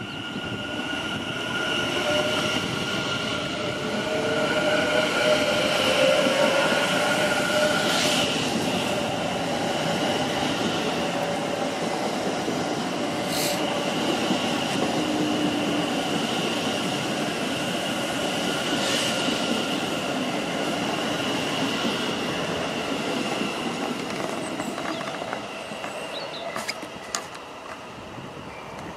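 Class 730 Aventra electric multiple unit moving past along the platform, gathering speed: a rising electric traction whine over steady high-pitched tones and wheel-on-rail noise. It grows louder for the first few seconds, holds steady, then fades near the end.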